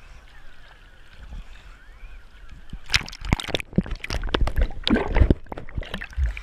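Seawater sloshing and splashing against a waterproof GoPro housing at the surface, with faint distant voices at first. About three seconds in the splashing turns loud and crackling as the camera dips under and breaks back through the surface.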